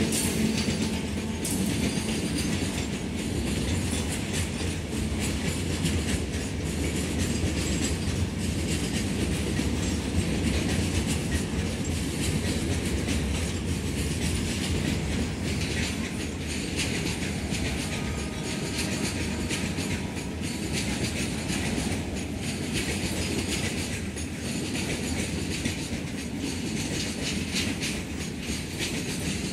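Freight train wagons rolling past: a steady rumble with the wheels clicking over rail joints throughout.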